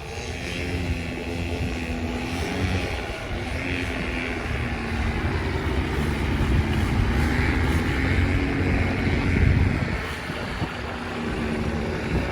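Polini Thor two-stroke paramotor engine running with its propeller, building up gradually to a peak and then easing back about ten seconds in.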